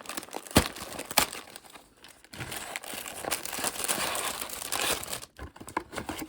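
A LEGO Microfighter set's cardboard box and packaging being opened by hand. There are two sharp snaps in the first second or so, then a few seconds of continuous crinkling and tearing.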